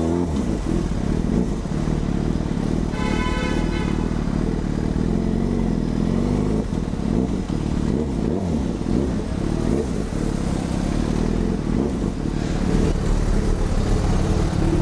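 Yamaha FZ6's inline-four engine through an aftermarket carbon exhaust, ridden at low speed in traffic, its pitch rising and falling as the throttle is opened and closed. A brief higher tone sounds about three seconds in.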